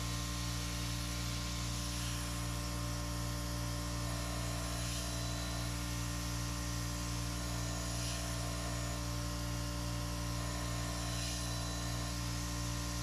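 Surface grinder running: a steady electric motor hum, with a faint higher tone that switches in and out every few seconds.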